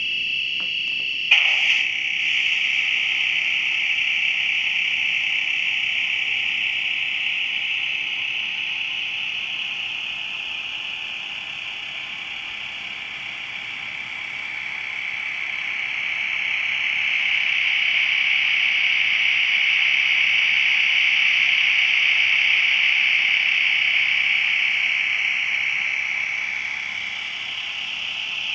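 Sound decoder in an HO-scale Great Northern W-1 electric locomotive model playing its electric-locomotive running sound through a small onboard speaker: a steady, high-pitched buzzing hum. It shifts abruptly about a second in, then slowly fades and swells again.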